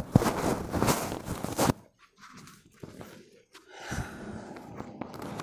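A loud, rough crackling noise that cuts off suddenly a little under two seconds in, followed by quieter scattered sounds of a person moving about and stepping.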